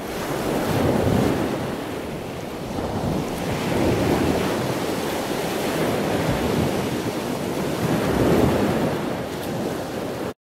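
Ocean waves sound effect: a rushing surf that swells and ebbs about three times, then cuts off suddenly near the end.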